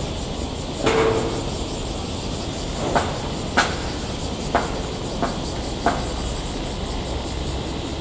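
JR Freight ED76 electric locomotive rolling slowly past: a steady low rumble broken by about six short, sharp clanks from its wheels and running gear.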